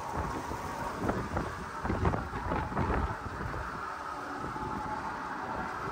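Wind buffeting the microphone on an open fishing boat at sea: an uneven, gusty low rumble with scattered thumps, and a faint steady hum underneath.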